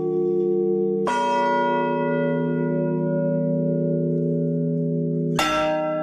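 Church bells tolled by hand, one stroke at a time: two strikes about four seconds apart, each ringing out over the long hum of the bells struck before. This is a traditional funeral toll, the local call announcing a death and a funeral.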